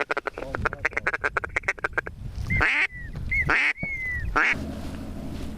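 A hunter's duck call blown as a rapid chatter of short notes, about ten a second, for the first two seconds. Then come two or three louder, separate quacking notes, each falling in pitch at its end.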